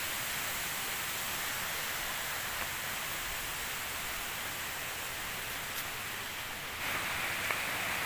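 Water rushing over rocks in a stream below a small waterfall: a steady, even hiss that grows a little louder near the end.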